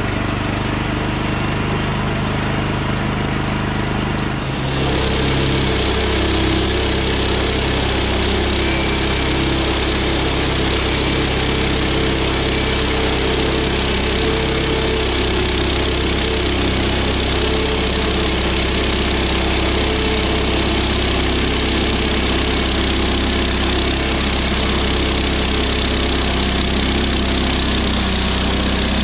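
Small gas engine of a Woodland Mills HM126 portable bandsaw mill running steadily as its band blade cuts through a pine log. The blade is dull. The sound steps up and gets louder about four to five seconds in.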